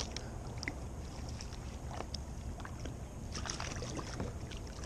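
Light water sloshing around kayaks and a landing net worked in the water, with scattered small clicks and knocks from fishing gear.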